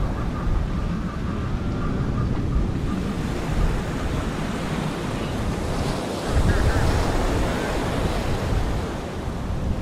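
Wind buffeting the microphone over the steady wash of ocean waves, the buffeting growing louder about six seconds in.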